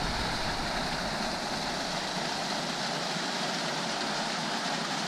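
Canyon creek water pouring between boulders into a pool: a steady, even rush of running water.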